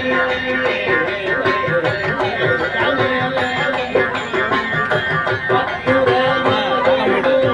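Instrumental interlude of a Tamil devotional song: a plucked string instrument playing a melody over a steady hand-drum rhythm.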